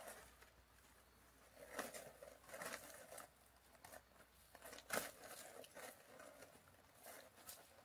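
Faint, irregular rustling and crackling of dry grass, dead stems and leaves as a cat paws through the undergrowth at a small snake, with the sharpest crackle about five seconds in.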